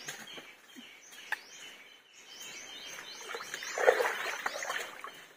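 Shallow creek water splashing and sloshing as a wading person moves and stands up, loudest about four seconds in, over birds chirping repeatedly.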